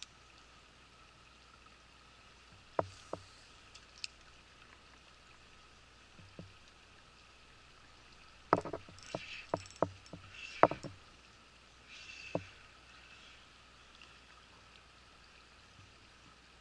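Scattered sharp clicks and knocks, a quick cluster of them about halfway through, over a faint steady river-bank background.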